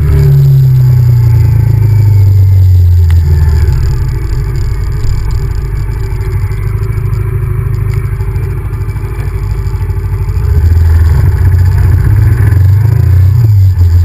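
Honda VTR1000F's V-twin engine heard on board while riding. The revs fall and the engine goes quieter about four seconds in, as if rolling off the throttle. It opens up again about ten and a half seconds in, its pitch rising and stepping as it accelerates.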